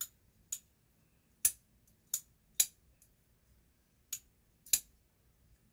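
Oknife Mettle button-lock folding knife clicking sharply as it is worked in the hand, about seven crisp metallic clicks at uneven intervals, typical of the blade snapping open and locking, then being released shut.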